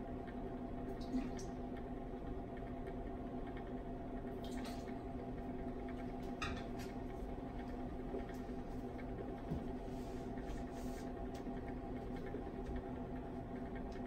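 Steady hum of running lab hot plates heating flasks of nutrient agar, made of several held tones, with a few faint soft ticks about a second in and again around four and a half and six and a half seconds.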